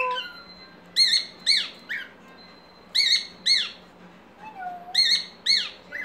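Cockatiel calling: short, shrill, arching calls in quick groups of two or three, about every two seconds.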